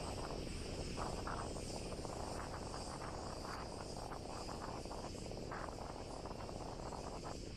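Cicadas buzzing steadily in the trees, a continuous high hiss, over a low outdoor rumble, with soft irregular crunching steps on the dirt road.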